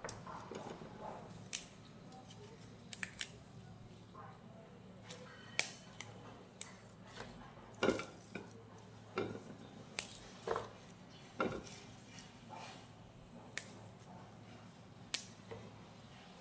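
Crisp snaps and light rustling as gloved hands break the stems of leafy greens and strip off leaves, in irregular single snaps every second or so.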